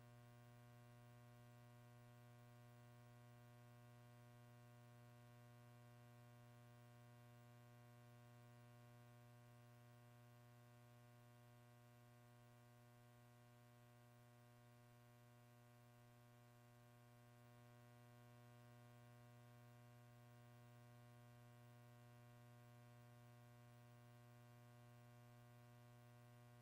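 Near silence, with a faint steady electrical hum that carries a stack of even overtones.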